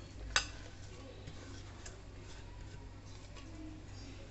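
A single light clink about half a second in as the steel bowl touches the pressure cooker pot, then faint soft patter of chopped onion and tomato dropping into the pot by hand.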